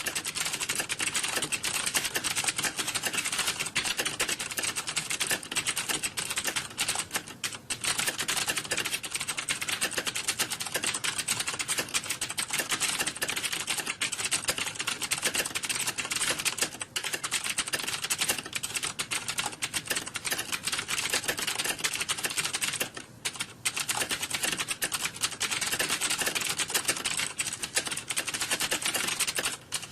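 Computer keyboard typing: a dense, continuous clatter of fast key clicks, broken by a few brief pauses.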